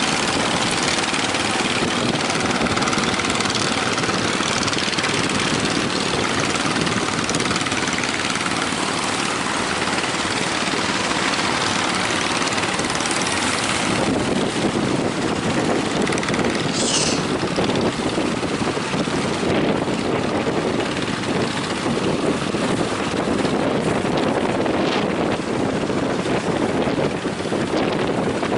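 Strong wind buffeting the microphone over the rush of breaking waves: a loud, steady rushing noise that turns lower and heavier about halfway through.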